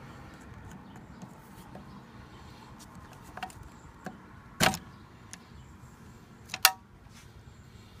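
Needle-nose pliers working wire spade connectors off the terminals of an RV rooftop air conditioner's capacitor: several short, sharp metallic clicks and clacks. The loudest comes about halfway through, with another near the end, over faint steady background noise.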